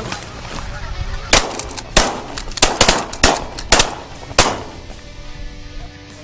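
A rapid volley of shotgun blasts from several hunters firing at incoming geese: about nine shots in quick succession, starting about a second in and ending about four and a half seconds in, each with a short echo.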